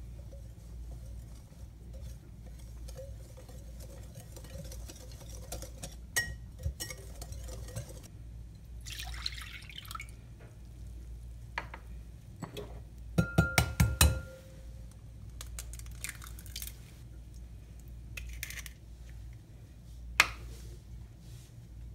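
Batter being made in glass mixing bowls: a wire whisk stirring dry cornmeal and flour, milk poured from a measuring cup, and about halfway through a quick run of five or six sharp taps that leave the glass ringing briefly. One more sharp click near the end.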